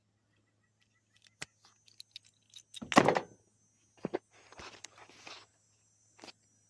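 Handling noises from a metal power plug and receptacle: light clicks, a loud clunk about three seconds in, a second knock, then a short stretch of rustling.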